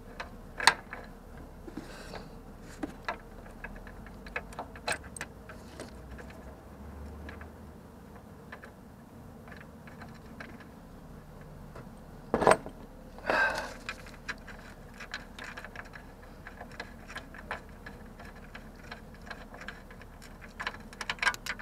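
Ratchet wrench and socket clicking and clinking in short, irregular spells while the mounting bolts of a Prius inverter water pump are worked loose, with one sharper metal knock about halfway through.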